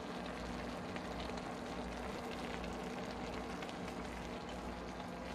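A pot of spicy bulgogi mushroom hot pot (jeongol) simmering on a tabletop cooktop: a steady bubbling hiss with a faint, even low hum.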